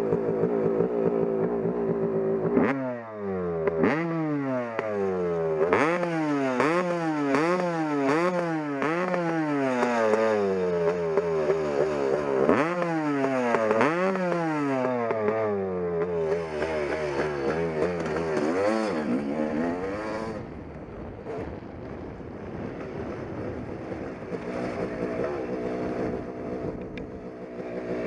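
1988 Yamaha YZ250's single-cylinder two-stroke engine, with a bored cylinder and aftermarket exhaust, running and being revved: about a dozen quick throttle blips, each rising sharply and falling back. After about twenty seconds it settles to a quieter, rougher steady running.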